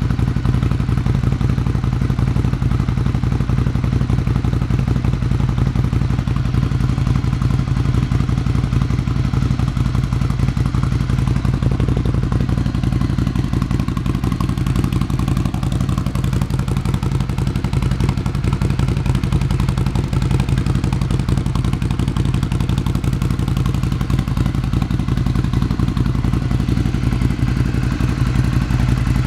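Ducati Scrambler's air-cooled L-twin idling steadily through an aftermarket Delkevic exhaust, a deep, even note with some mechanical clatter.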